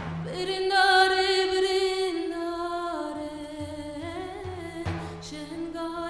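A woman singing a Kurdish Alevi devotional song in long held notes with a shake in them, stepping down in pitch. Deep drum strikes come in now and then underneath.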